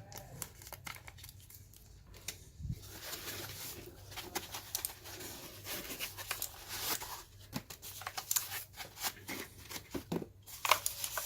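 Plastic packaging crinkling and rustling as the mechanical keyboard is unwrapped and handled, with a run of sharp, irregular clicks of its key switches being pressed, louder near the end.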